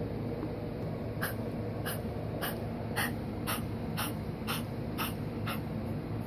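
A pet coughing in a fit of about nine short, dry coughs at roughly two a second, starting about a second in and stopping near the end. The cough persists despite allergy pills.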